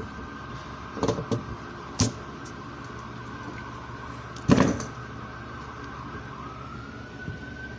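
A siren wailing at a distance: a steady tone that, near the end, slides up and then back down. A few knocks sound over it, with a louder thump about four and a half seconds in.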